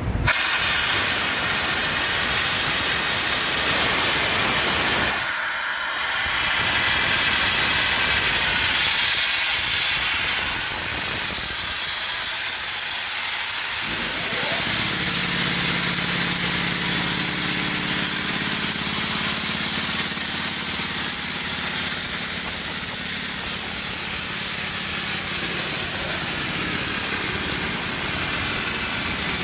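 Compressed air hissing out steadily from an Ingersoll Rand 10 hp duplex air compressor's 120-gallon tank, starting suddenly. About halfway through, the compressor starts and runs with a steady hum under the continuing hiss.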